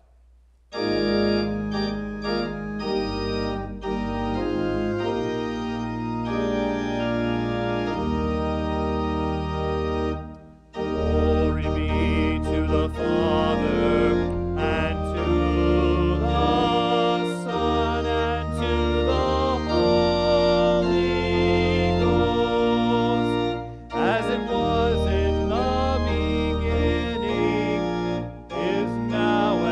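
Church organ playing sustained chords in phrases, with brief breaks between them. A man's voice sings along in places, leading a sung response.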